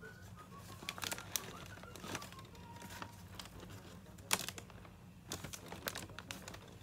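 Rustling and crinkling of a glossy craft bag as it is handled and glued-on paper hair is pressed onto its top, with scattered light taps and clicks, the sharpest about four seconds in.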